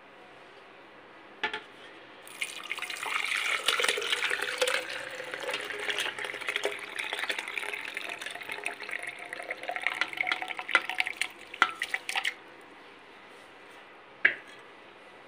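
Boiled raw-mango pieces and their syrupy cooking water poured from a metal pan into a glass blender jug, splashing and plopping for about ten seconds before stopping. A single knock comes just before the pouring and another near the end.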